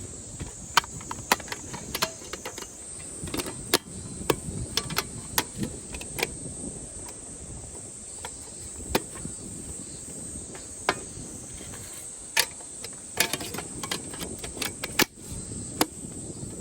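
Insects trilling steadily, with many irregular sharp clicks and knocks of things being handled close by.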